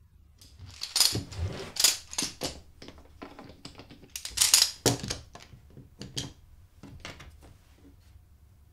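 Metal bar clamps being fitted and tightened on a plywood jig: runs of sharp mechanical clicks and clatter with light knocks against the wood. They come in two louder bursts, about a second in and again around four and a half seconds, then fewer, quieter clicks.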